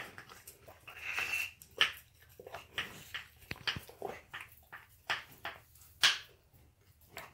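Alaskan Malamute licking and mouthing a raw beef rib, an irregular run of short wet smacks and clicks.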